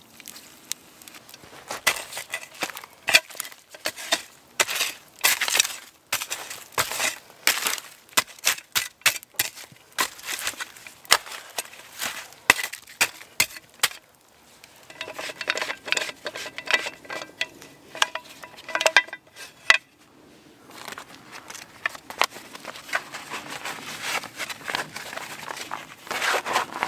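Small metal camp shovel scraping and chopping through wet ash and charred wood, with crunches and metallic clinks against stones, burying the doused campfire. Near the end, a steadier rustle of fabric as the shovel is handled in its cloth cover.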